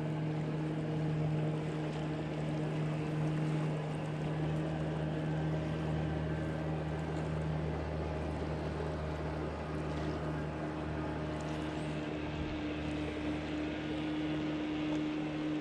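Outboard motorboat engine running steadily on the river, a continuous drone of boats heading upstream.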